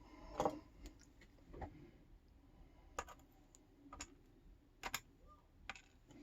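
Light, irregular clicks and taps of small metal lock parts and tools being handled, about seven in all, as a disassembled padlock's pins and core are worked on.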